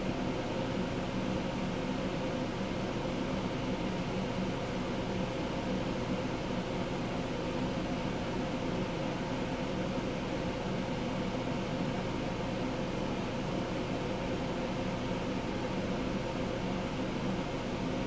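Home Decorators Collection Windward 52-inch ceiling fan running steadily: a steady motor hum with several tones over a steady hiss.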